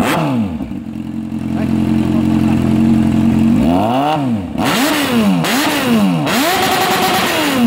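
Yamaha XJ6's 600 cc inline-four running through an aftermarket slip-on exhaust: a rev falls back to idle at the start, it idles steadily for about three seconds, then is blipped up and down four times in quick succession, the fourth rev held briefly before dropping.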